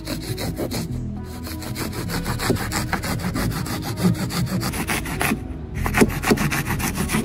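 Hand drywall saw cutting through cured expanding spray foam in quick back-and-forth strokes, with a short break about five and a half seconds in. Music plays underneath.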